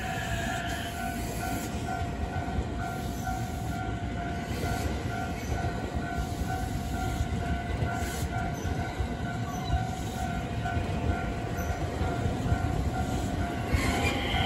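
Train running by, a steady rumble of wheels on rails with a few steady tones over it. A new, higher tone comes in near the end.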